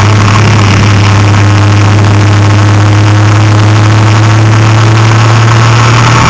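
Vehicle engine heard from on board, running at steady revs under load on an uphill road. It makes a loud, constant drone with a rushing noise over it.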